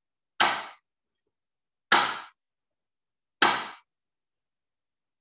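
Wooden clappers struck together three times, about a second and a half apart, each a sharp crack that dies away quickly.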